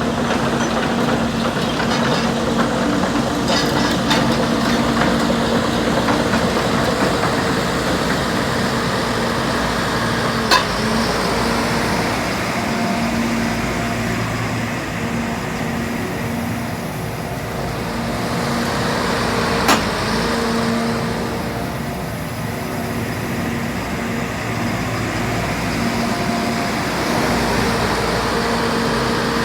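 JCB 220XLC tracked excavator's diesel engine running steadily with a constant hum. Two sharp clicks break it, about a third and two thirds of the way through.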